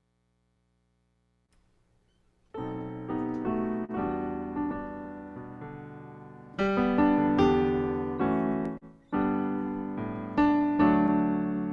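A piano starts playing about two and a half seconds in, after near silence: slow chords struck and left to ring and fade, with fresh louder chords every few seconds.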